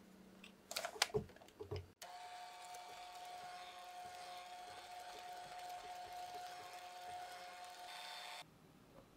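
A few sharp clicks and knocks, then about two seconds in an electric mixer with a wire whisk starts and runs at a steady hum, whipping cream cheese whipped cream in a glass bowl; it cuts off suddenly near the end.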